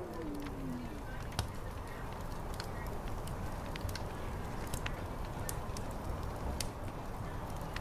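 Fire crackling in a medieval tavern ambience: scattered sharp pops over a steady low rumble of wind. A long wavering pitched tone dies away within the first second.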